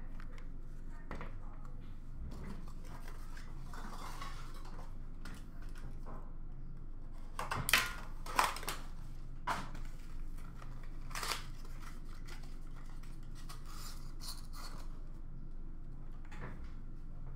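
Hard plastic card cases being handled and set down: scattered light clicks and clacks, with a cluster of sharper clacks about eight to eleven seconds in, over a faint steady hum.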